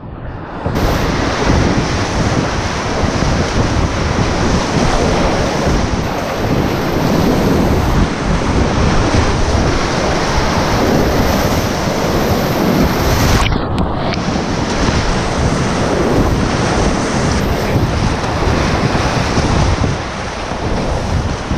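Whitewater rapids rushing and splashing around a kayak, heard close on the boat's camera microphone as it paddles through; the sound is briefly dulled about fourteen seconds in and eases a little near the end as the water calms.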